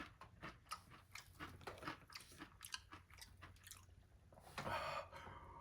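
A person chewing a crunchy fried chicken tender: faint, quick, irregular crunching clicks. About four and a half seconds in, a short breathy exhale.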